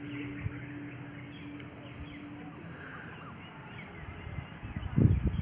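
Outdoor village ambience: birds chirping and calling, short scattered calls throughout, over a faint steady hum that stops about halfway. A louder low rumbling noise starts near the end.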